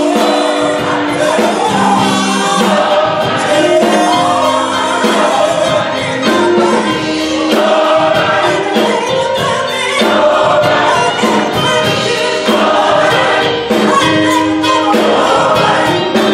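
Gospel choir singing, led by vocalists on microphones, with a live band of drums and electric guitar playing along.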